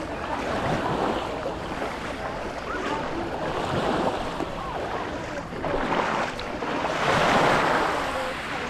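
Sea waves washing on the shore, with wind buffeting the microphone; one wash swells loudest about seven seconds in.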